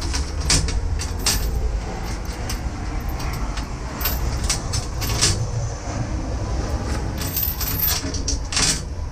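Steel safety chain rattling and clinking as it is pulled along and laid on a tow dolly's metal frame, a string of irregular sharp jingles over a steady low rumble.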